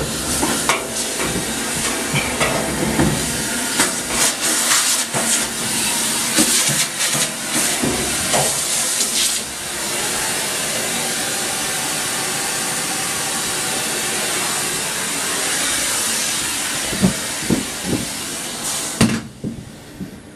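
Vacuum cleaner running steadily, its hose sucking lint out of a clothes dryer's cabinet, with clicks and rattles of the nozzle against the metal and a few sharp knocks near the end. It switches off about a second before the end.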